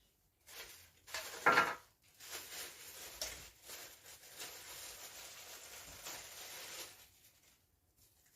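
Handling noise from unpacking and fitting together the plastic parts of a vacuum cleaner: rustling and knocking, with one louder scrape about a second and a half in.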